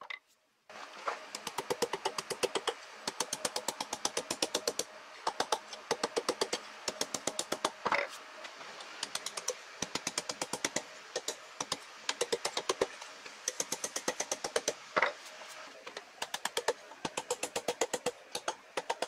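Hand hammer striking red-hot steel held in tongs on an anvil, in fast runs of blows with short pauses: an old pick head being forged into a tomahawk.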